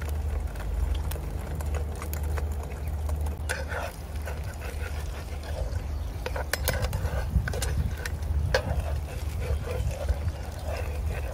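A metal spatula scraping and clinking against a nonstick frying pan as it slides under a fried egg, with a few sharp clicks among the scrapes, over a steady low hum.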